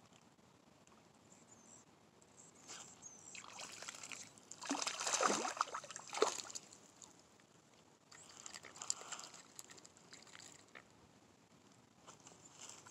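Hooked fish splashing at the water's surface at the bank as it is reeled in, loudest about five seconds in, then a softer bout of splashing a few seconds later.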